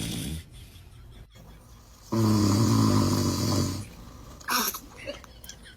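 A man's snore: one long, loud snoring breath lasting under two seconds, starting about two seconds in, followed a second later by a short sharp rising sound.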